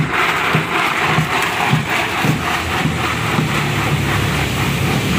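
Ice cubes and fruit drink stirred in a large plastic bucket with a long stick: a churning, sloshing noise of ice and liquid, pulsing about twice a second with each stroke.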